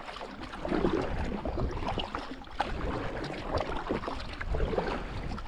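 Packraft paddling on calm river water: irregular dips and splashes of the paddle blades, with water dripping and one sharp click about two and a half seconds in.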